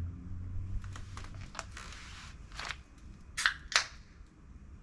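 Several short, sharp handling noises, the two loudest a moment apart about three and a half seconds in.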